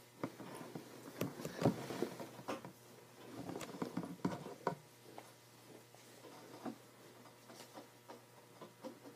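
Scattered soft taps, knocks and rustling from someone shifting about close to the recording device. They are busiest for the first five seconds or so, then thin out to occasional light ticks.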